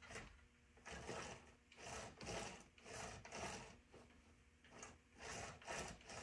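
Chainsaw chain being worked round the bar by hand in short strokes, about eight rasping, clicking pulls: the chain is on too tight and is being moved to find the slack.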